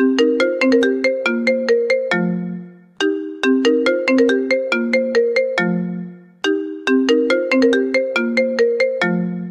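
A mobile phone ringtone melody looping: a quick run of notes that ends on a held low note, repeated about every three seconds, three times over.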